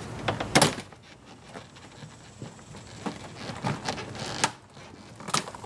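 Clicks and knocks from handling car door-panel parts, with one loud knock about half a second in and scattered lighter clicks after.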